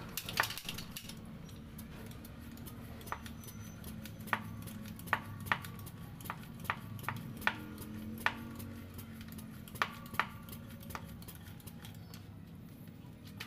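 Air being pumped into an Estrella Parco air rifle through its built-in pump: about a dozen sharp clicks at uneven intervals, over a low steady hum.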